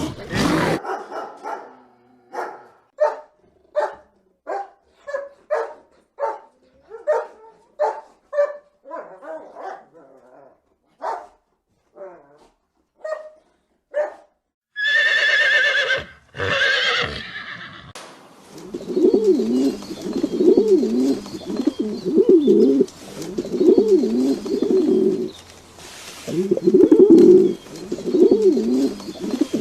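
A dog barking, a dozen or so short barks spaced about a second apart. Then comes a brief, louder, high wavering call. Then pigeons cooing, a low repeating coo about once a second.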